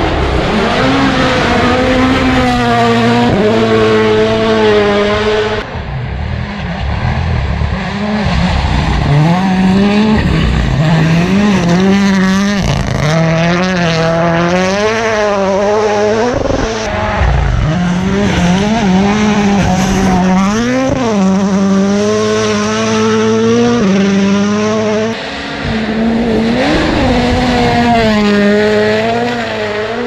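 Rally1 rally cars' turbocharged four-cylinder engines driven flat out past the listener one after another, revving hard with fast rises and falls in pitch through gear changes and lifts.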